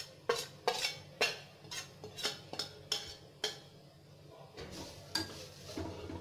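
A metal spoon clinking and scraping against a mixer jar and an aluminium kadhai as freshly ground coconut is emptied into the pan: a quick run of sharp clinks for the first three seconds or so, then softer scraping.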